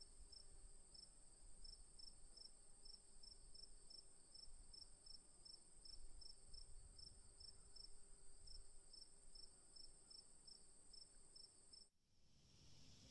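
Faint crickets chirping: a steady high trill together with a quick chirp repeating about four times a second, both cutting off abruptly near the end.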